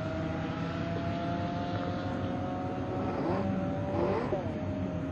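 Drag racing cars running hard down the strip away from the listener, their engines a steady, slowly falling note heard at a distance. About three to four seconds in a second whine briefly rises and falls.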